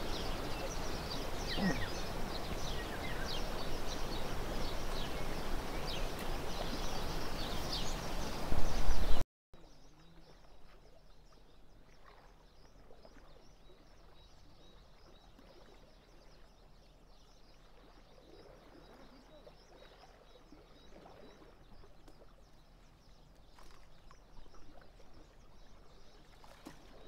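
Fast-flowing river water rushing steadily, with small birds chirping over it. About nine seconds in, after a brief louder surge, it cuts off suddenly, leaving only faint birdsong over a much quieter background.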